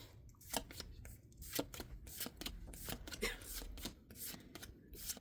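Pokémon trading cards being slid and flipped through by hand, a run of short, irregular papery swishes and flicks.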